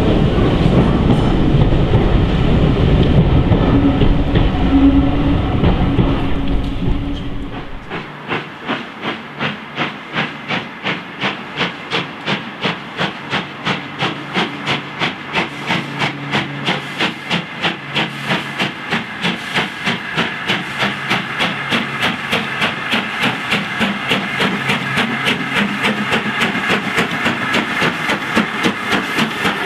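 A loud low rumble from a steam train in a tunnel fades out, then the LMS Black 5 4-6-0 No. 44871 comes on working hard, its exhaust beats regular at about two to three a second and slowly quickening, with steam hissing.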